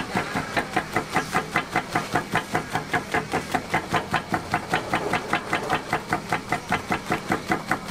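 Motor-driven flywheel press pounding a piece of grilled dried squid flat: a fast, even train of hammer strokes, about five a second, over the steady hum of its electric motor.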